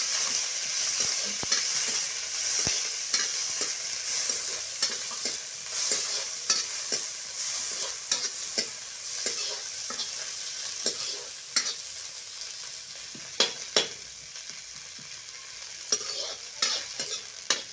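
Sliced onions and curry leaves sizzling in hot oil in a kadai, with a metal spatula scraping and clicking against the pan as they are stirred. The sizzle is loudest at first and dies down over the last few seconds.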